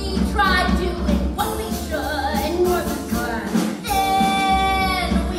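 Musical-theatre song: singing voices over band accompaniment with a steady beat, including a long held note about four seconds in.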